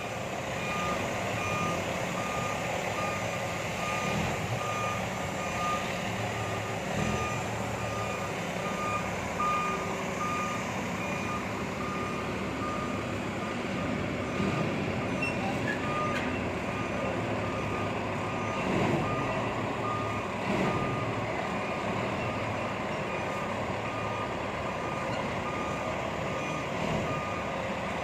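Reversing alarm on a Freightliner semi tractor, beeping at an even rate and pausing for a few seconds partway through, over the truck's diesel engine running.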